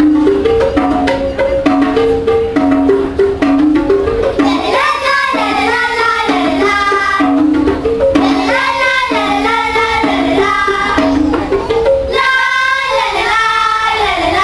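Children's percussion ensemble playing tablas and a row of tuned drums (duggi tarang), the drums sounding a rhythmic pattern of short pitched notes. From about four seconds in, a group of girls sing over the drums in phrases, pausing briefly twice.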